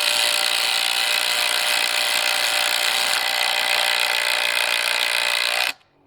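Ridgid Octane and Makita TD171 cordless impact drivers hammering at full speed as they drive 5.5-inch TimberLOK screws into timber. The steady, rapid impacting cuts off abruptly near the end.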